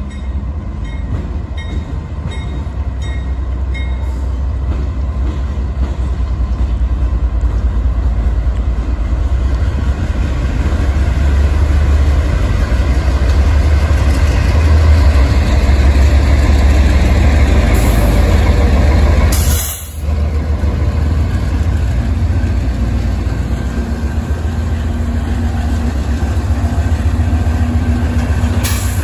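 Diesel locomotives leading CSX intermodal train I037 pass close by: a deep engine rumble that builds over the first dozen seconds and stays heavy as they go past.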